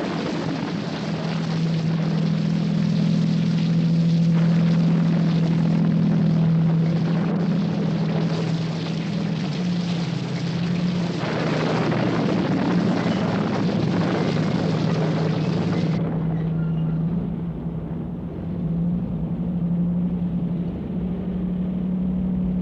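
Sound-effect engine of a heavy vehicle running steadily, a constant low droning hum with a rumbling rush above it; about sixteen seconds in the sound turns duller.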